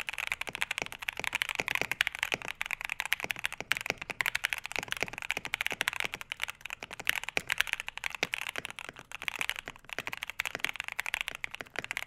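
Fast continuous typing on a Mode Eighty keyboard with an FR4 plate and PE foam mod, fitted with stock, unlubed Akko CS Vintage White linear switches; after about eight seconds the switches heard are stock Akko CS Rose Red linears. Quick, uneven keystroke clicks with no tactile bump or click mechanism.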